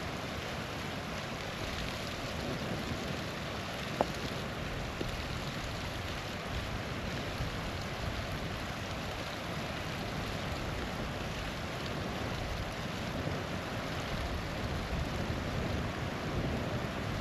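Small waterfall rushing steadily. A campfire gives one sharp pop about four seconds in.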